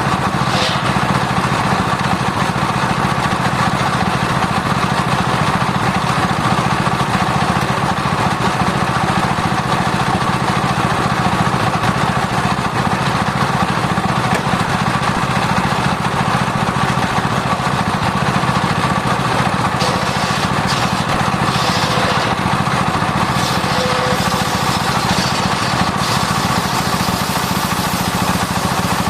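Sawmill circular disc saw rig running steadily, a constant mechanical drone with no break or change in pitch.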